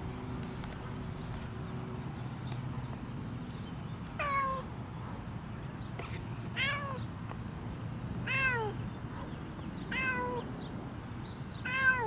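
Grey tabby cat meowing five times, starting about four seconds in: short calls that fall in pitch, one every one and a half to two seconds.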